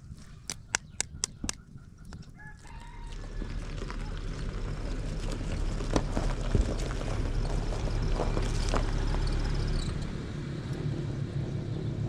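A few sharp taps of eggshells being cracked, then a Peugeot 405 sedan's engine running as the car drives slowly over rocky gravel, its low rumble growing louder as it comes closer. A rooster crows in the background.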